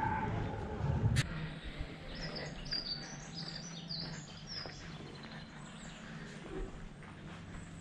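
Small bird chirping and twittering outdoors in a quick run of high notes from about two seconds in, lasting about three seconds. A low rumble before it cuts off about a second in.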